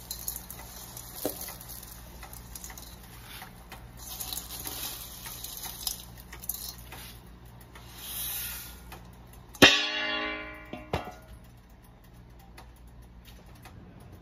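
Large pot of water at a rolling boil, bubbling with small ticks as dry noodles are tipped in. Near ten seconds in, a dish clanks against the metal pot once, with a ringing tone that dies away over about a second, then a lighter knock.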